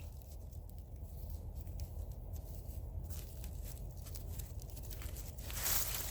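Faint rustling and scraping in leaf litter and soil, a string of small scrapes with a louder one near the end, over a low steady rumble.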